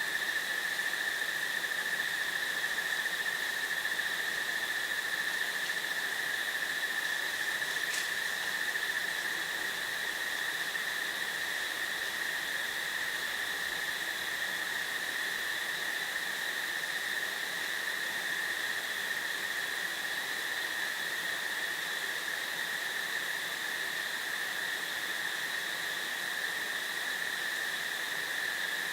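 Crickets trilling in a steady, unbroken chorus that holds one high pitch throughout, over a soft hiss, with a single faint tick about eight seconds in.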